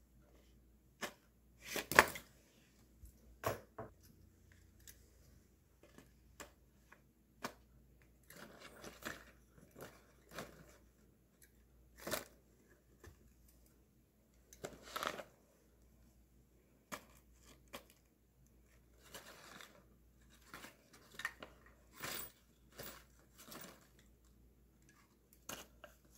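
Plastic reacher-grabber tool clicking and knocking as it grips and handles small paper and plastic mini trash bins, with paper trash rustling and crinkling as the bins are tipped out. The sounds come in scattered short bursts, the loudest a sharp click about two seconds in.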